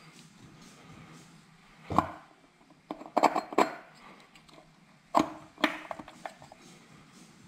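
Metal clicks and clinks of a Suzuki RGV250 two-stroke's clutch basket and transmission gears being turned and shifted by hand to make them mesh: one knock, a quick flurry a second later, then a few more scattered clicks.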